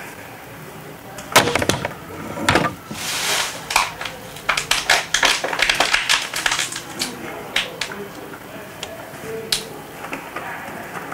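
Bulky plastic bags of recyclable waste being handled: crinkling and rustling with sharp crackles and knocks, densest in the middle, thinning to scattered crackles near the end.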